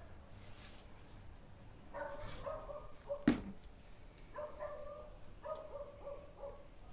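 A dog barking in short runs of quick barks, with a single sharp click a little past the middle.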